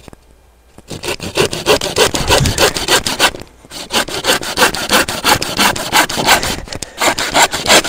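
Hand saw cutting through a piece of wood in quick back-and-forth strokes, starting about a second in, with a brief pause partway through before the sawing resumes.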